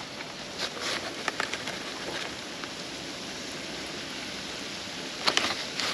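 Breaded fish pieces frying in oil in a small skillet on a propane camp stove: a steady sizzle with scattered pops and crackles, the loudest cluster about five seconds in.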